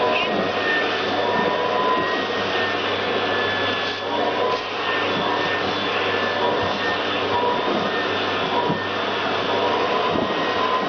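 Vacuum cleaner running steadily with a whine whose pitch drifts slightly, its nozzle being drawn over a cat's fur.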